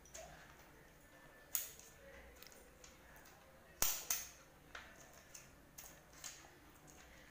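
Scattered sharp clicks and taps of plastic magnetic alphabet letters against a steel fridge door. The loudest are two clicks a quarter second apart just under four seconds in.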